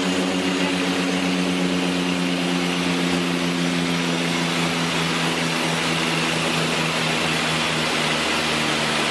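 Aircraft engines droning steadily, heard from inside the cockpit: a constant hum of several held tones over engine and air noise, dipping slightly in pitch near the end.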